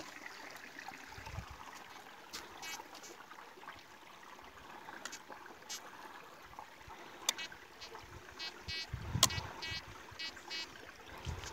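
Faint, short pulsing beeps from a Tianxun metal detector sweeping over a dug hole, heard through its earphones lying on the rock. The beeps come once about 3 s in, again near 6 s, and repeatedly near the end; they signal a target still in the hole, taken to be ferrous. A few sharp clicks and a low steady rush of river water sound under them.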